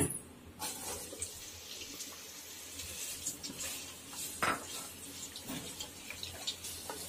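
Sliced onions scraped off a glass bowl with a wooden spatula into hot oil in a non-stick pot, then stirred: scattered knocks and scrapes of the spatula on bowl and pot over a light sizzle, with one louder knock about halfway through.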